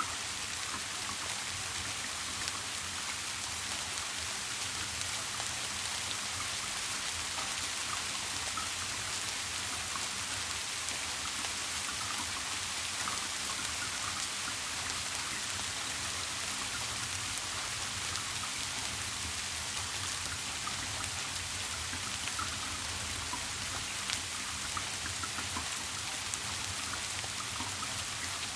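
Steady rain: an even hiss of rainfall with scattered, slightly louder individual drops.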